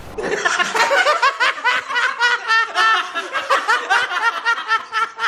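Rapid, high-pitched laughter: a long run of quick, repeated bursts of cackling.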